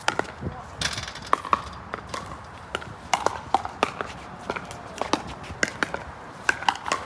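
Pickleball paddles hitting a plastic ball and the ball bouncing on the court: sharp pops at irregular intervals, several a second at times.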